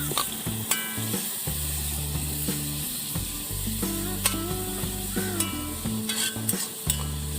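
Sliced onions sizzling in hot coconut oil in a pan, with sharp clicks of a spoon stirring against the pan. A low hum cuts in and out.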